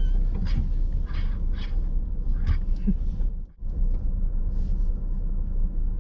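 Short scratching and tapping noises from a Barbary macaque handling the camera or car surface right at the microphone, over a steady low rumble. Most of the scratches come in the first half, and the sound cuts out for an instant about three and a half seconds in.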